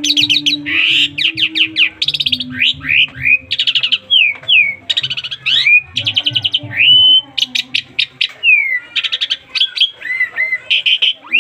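Asian pied starling (jalak suren) singing a long, unbroken, varied song. It runs rapid trilled chirps, sliding whistles and slurred notes together and weaves in fills mimicked from other birds.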